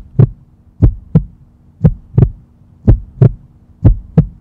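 Heartbeat sound effect: loud paired lub-dub thumps, about one beat a second, over a faint steady hum.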